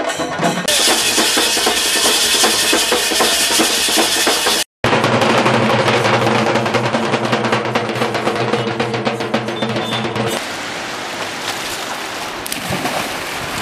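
Loud, fast drumming by a group of procession drums: cylindrical drums hung from the shoulder and beaten with sticks, with a steady held tone underneath. It breaks off for an instant a little under five seconds in, and after about ten seconds gives way to a quieter, even outdoor noise.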